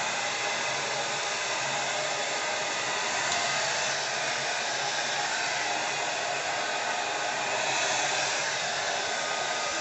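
Handheld hair dryer blowing steadily, drying Got2b Glued spray on the lace edge of a wig to set it.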